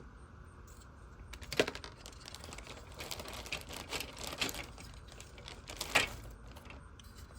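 Plastic model kit parts and bags being handled: light irregular clicks and crinkling, with two sharper clicks about a second and a half in and near six seconds.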